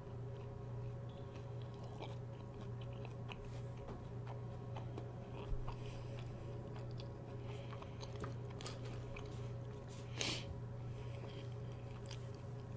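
Close-miked chewing of fast food with the mouth closed: small clicks and soft crunches, with one louder noisy mouth sound about ten seconds in. A steady low hum runs underneath.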